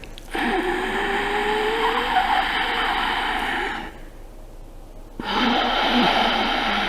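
Ujjayi breathing: a man breathes through the nose with the throat partly constricted, making a loud, rasping, hissing breath sound. There are two long breaths: the first lasts about three and a half seconds, and the second starts after a pause of about a second.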